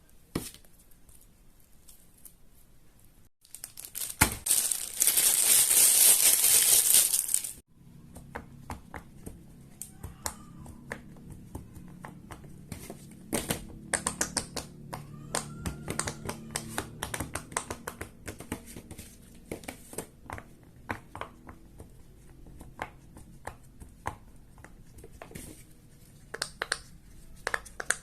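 Fidget toys being handled close up. There is a burst of crinkling, rustling noise for about four seconds, then a long run of irregular small clicks and pops.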